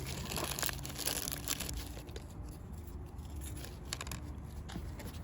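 Hands handling small parts and packaging: rustling and crinkling with many small clicks, busiest in the first two seconds and sparser after.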